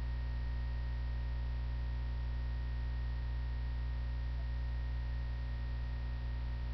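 Steady low electrical mains hum with a faint hiss in the recording, unchanging throughout.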